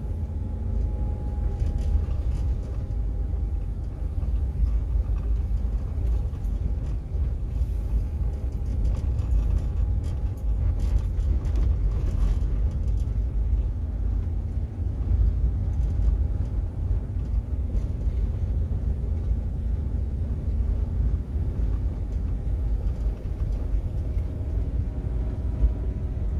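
A vehicle travelling along a road: a steady low rumble of road and wind noise with a faint engine hum that drifts slowly in pitch.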